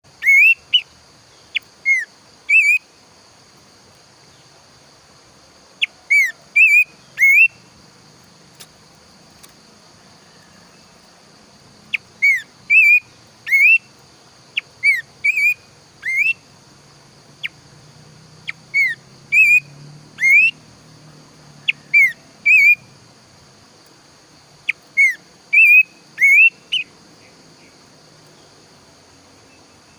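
Planduk semak bird singing: phrases of a few short, clear whistled notes that swoop up and down, repeated every few seconds with pauses between. A steady high hiss runs underneath.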